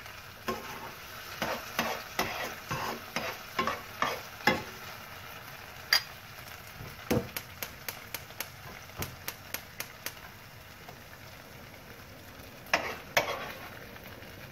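Metal spoon scraping and clinking against a frying pan and a plate as cooked chicken mince filling is scooped out, over a faint steady sizzle of hot oil. Near the middle comes a run of quick light taps of the spoon.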